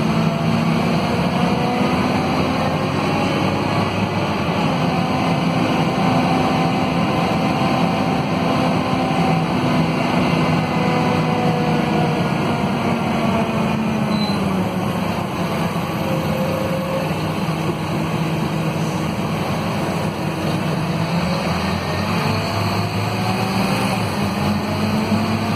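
Scania DC9 five-cylinder diesel engine and ZF Ecomat automatic transmission of a Scania K230UB city bus under way, heard from inside the passenger cabin. The engine note rises and falls several times as the bus accelerates and slows, with a quieter, lower stretch about halfway through.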